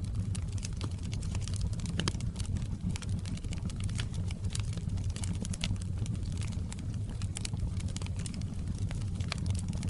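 Wood fire crackling in a fireplace: frequent sharp pops and snaps over a steady low rumble of the flames.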